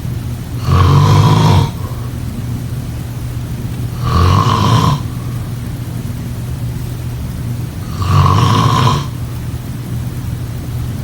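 A person snoring: three loud snores about four seconds apart, each lasting about a second, with a steady low rumble between them.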